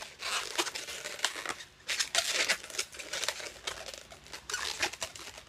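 Latex 260 twisting balloons being handled and twisted by hand, with irregular rubbing, crinkling squeaks.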